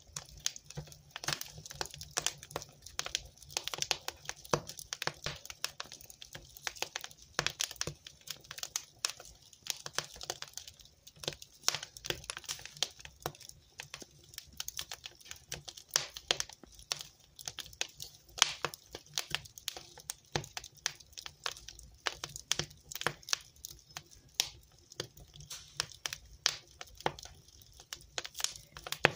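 Wood fire burning in a fireplace, crackling with dense, irregular pops and snaps over a faint low hiss.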